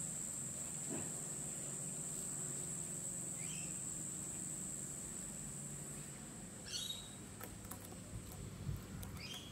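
Steady high-pitched drone of insects, with a few short bird chirps, one in the middle and two more later on.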